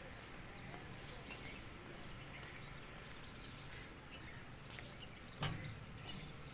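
Birds chirping here and there over a steady low background hum, with one dull thump about five and a half seconds in.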